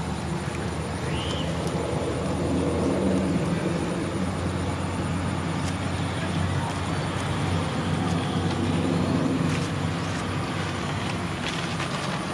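Low, steady engine drone of a motor vehicle, swelling louder about three seconds in and again about nine seconds in. A brief high chirp about a second in.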